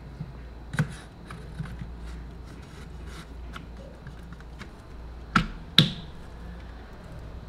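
Small clicks and taps of a model truck's wheel being handled and pressed onto its axle on the chassis, with one click about a second in and two sharper clicks close together after about five seconds.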